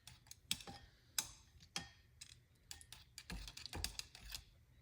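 A string of light clicks and taps from kitchen utensils being handled against a pan and bowl, coming more closely together in the second half.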